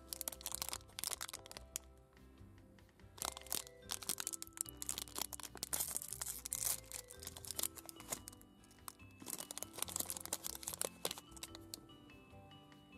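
Shiny foil wrapper of a Black Thunder mini chocolate bar being torn open and peeled back by hand, crinkling and crackling in quick bursts that die away near the end, with background music underneath.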